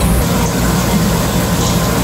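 Steady low rumbling background noise, even throughout.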